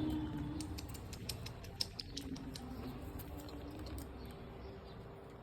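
Pet parrot nibbling a chilli with its beak: a run of small, sharp, irregular clicks and crunches, several a second, that thin out about four seconds in. A faint steady low hum sits underneath.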